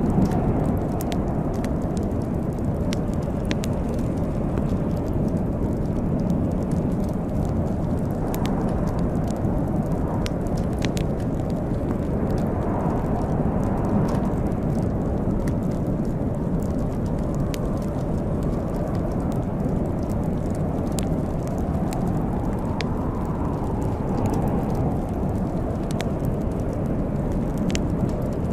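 Wood fire burning in a fireplace, crackling with scattered sharp pops over a steady low rumble.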